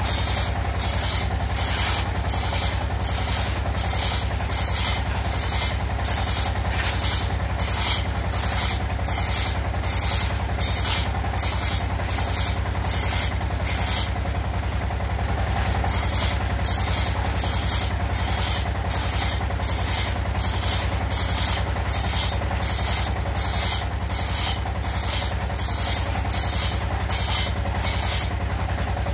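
Two-man hand saw ripping lengthwise through teak: rhythmic rasping strokes of the teeth in the wood, about two a second, with a brief break about halfway through. A steady low hum runs underneath.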